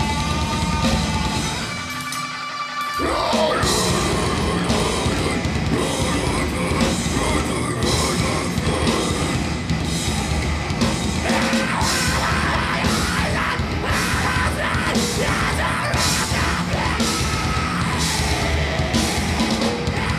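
Live metal band playing at full volume: distorted guitars, bass and drums with screamed vocals. About two seconds in the drums and low end drop out for roughly a second, leaving a held note, before the whole band crashes back in.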